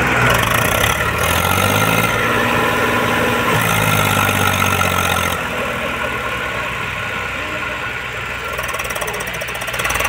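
Eicher 480 tractor's diesel engine revving hard, its pitch rising and falling, as the tractor sits bogged in deep sand with a loaded sand trailer. About halfway through, the revs drop suddenly to a steadier idle.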